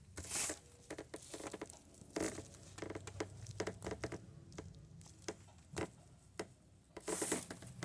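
Scattered light clicks, taps and rustles of something being handled, coming in small clusters with short gaps between them.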